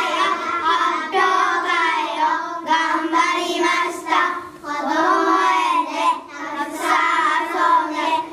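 Young children's voices singing together, a held melody in phrases of a second or two with short breaks between.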